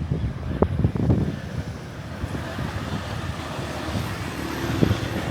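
A motor vehicle passing on the street, its noise building from about two seconds in, with a few low thumps near the start and end.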